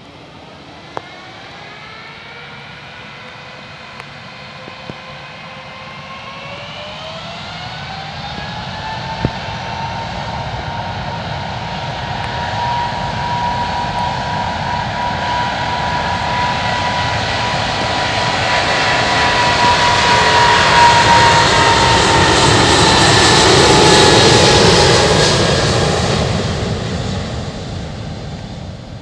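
Jet airliner's engines spooling up to takeoff power, several whining tones rising in pitch over a few seconds, then a roar that grows as the aircraft accelerates past, loudest about three-quarters of the way through and fading near the end.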